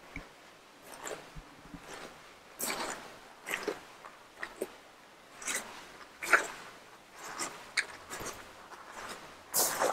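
Footsteps crunching on gravel, an unhurried step about every second.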